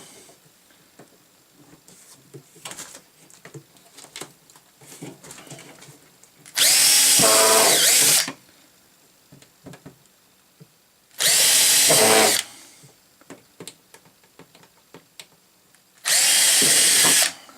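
Power drill boring three pilot holes into a plastic dust port, in three separate runs of about a second and a half each, with light handling clicks between them.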